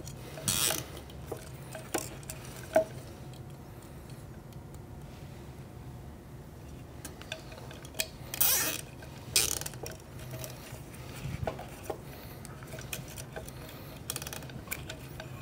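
Nylon zip ties being ratcheted tight around wiring inside a coffee grinder's metal housing: short rasping zips, the longest about eight seconds in, among scattered clicks and knocks of hands handling parts in the housing.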